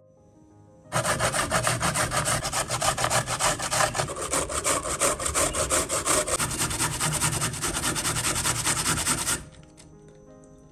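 A carrot being grated on a flat handheld stainless-steel grater propped on a wooden board: fast, even rasping strokes that start about a second in and stop abruptly about a second before the end.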